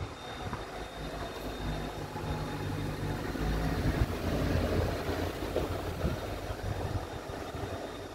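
Low engine rumble of a passing vehicle, swelling through the middle and fading toward the end.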